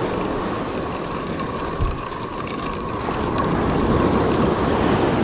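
Spinning reel being cranked steadily to wind in line on a hooked fish, its gears giving a steady whir with faint clicks, over a noise of surf and wind on the microphone.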